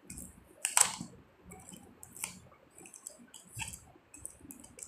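Adhesive tape and a thin plastic bottle being handled and pressed by fingers: scattered small clicks and crinkles, with one sharper click about a second in.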